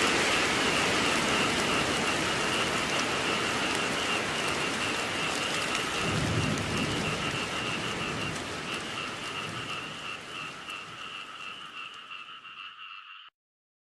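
Steady rainfall with a chorus of frogs calling in a pulsing trill over it. A low rumble comes about halfway through. Everything fades down over the last few seconds and then cuts off.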